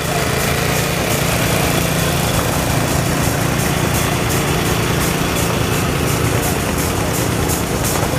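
Engines running steadily: an even low hum with a light regular beat of about two or three strokes a second over it.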